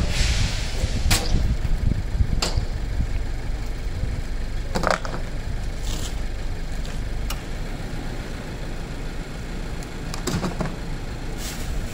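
Scattered rustles and knocks of trash bags and items being rummaged through in a dumpster, over a steady low rumble.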